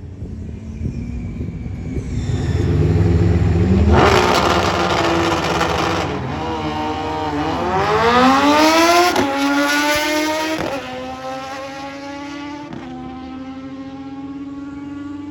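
Drag racing motorcycle launching and accelerating hard down the strip. Its engine note climbs steeply in pitch, then drops sharply at each of about three gear changes, before settling into a steadier, quieter note as it runs away.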